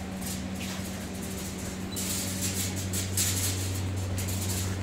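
Saint Bernard puppies eating chicken and rice from a steel bowl: irregular wet chewing and lapping noises, heavier from about two seconds in, over a steady low hum.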